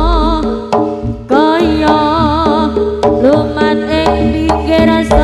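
Live jaranan band music over loudspeakers: kendang hand-drum strokes under a wavering melody line, in an instrumental gap between sung lines of a Javanese song.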